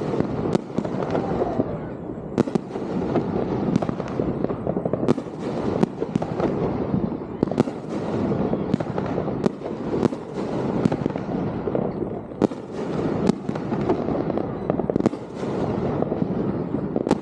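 Fireworks display: a dense, steady crackle with sharp bangs going off about once a second.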